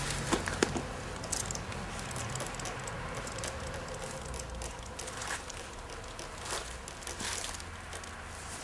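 Faint scattered taps and rustles of a small brush dabbing print-removing solution onto a vinyl banner, over a steady low background hum.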